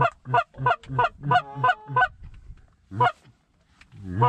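Canada geese honking: a fast, regular run of seven short two-note honks over about two seconds, then one more honk about three seconds in and another at the very end.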